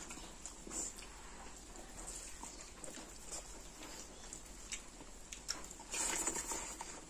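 Chewing and lip-smacking of rice and chicken curry eaten by hand, with soft wet squishes of fingers working the rice. Short smacks come throughout, loudest about six seconds in as a handful goes into the mouth.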